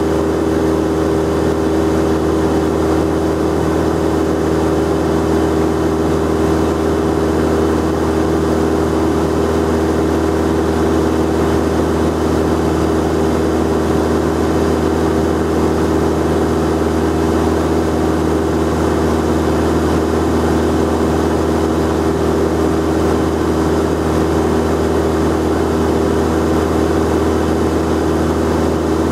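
Cessna 172 piston engine and propeller running steadily, heard from inside the cabin as a constant droning hum with a steady rushing noise underneath.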